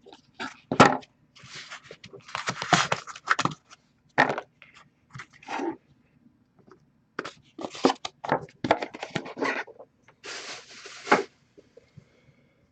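Hockey card box being opened and its cards handled: packaging scraping, crinkling and tearing, with sharp clicks in between, in irregular bursts and a longer rustle near the end.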